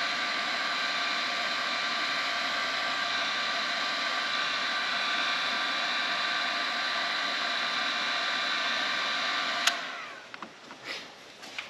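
Cordless heat gun running steadily, its fan blowing with a whine, shrinking adhesive-lined heat shrink over soldered wire joints. Near the end it is switched off with a click and the fan winds down, followed by a few light handling clicks.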